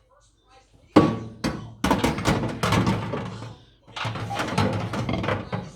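Knocks and clatter as turntable parts are handled and fitted into a new microwave oven's cavity. A sharp knock about a second in, then a run of further knocks, with a short pause before more near the end.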